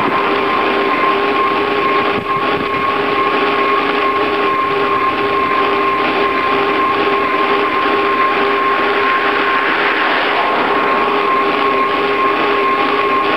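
Steady rushing wind and tyre noise from a bicycle riding along a paved road, picked up by a camera mounted low beside the front wheel, with a constant whine running through it.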